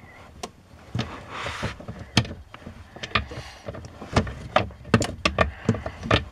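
Irregular clicks and knocks of a hand tool against the plastic and metal of an accelerator pedal assembly under a truck's dashboard, with two brief rustles.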